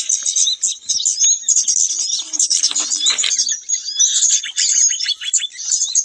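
Many small songbirds chirping and twittering densely and without a break, high-pitched.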